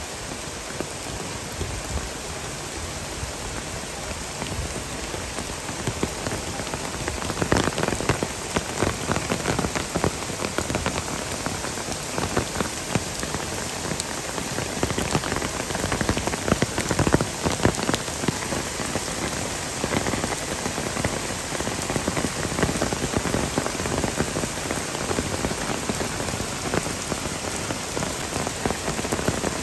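Heavy downpour: a steady rain hiss with a dense patter of drop impacts, heavier from about seven seconds in.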